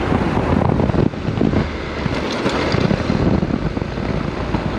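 Honda NC700X motorcycle's parallel-twin engine running while riding on a dirt trail, with wind buffeting the microphone.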